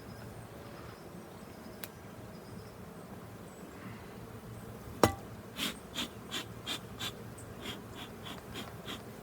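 Honeybees humming in an opened hive. About five seconds in comes a single sharp knock, followed by a quick run of about ten short strokes, some three a second.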